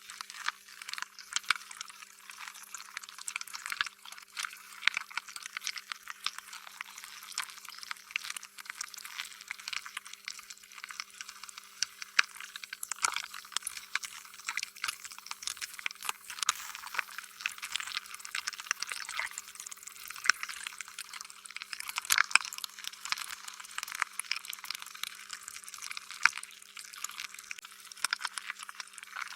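Slime being squished and stretched by hand: a dense, irregular run of wet pops, squelches and sticky clicks, with a faint steady hum underneath.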